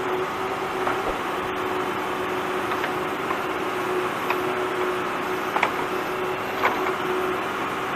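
JCB 3DX backhoe loader's diesel engine running steadily under load with a constant hum-like tone as the backhoe arm works a full bucket up out of the trench. Several sharp metallic clicks and knocks come from the arm and bucket linkage.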